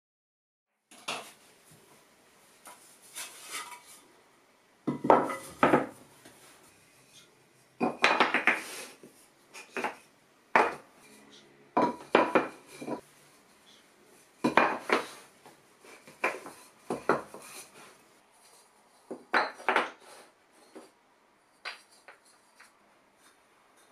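Cut red cedar boards knocking and clattering against each other and the wooden workbench as they are picked up and set down. The clacks come in short clusters every second or two, starting about a second in.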